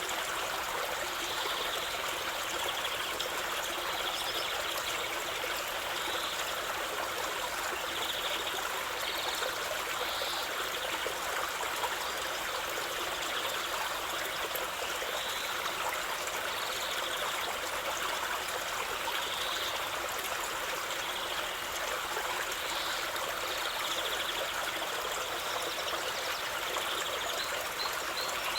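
A stream of running water, a steady, even rushing and trickling.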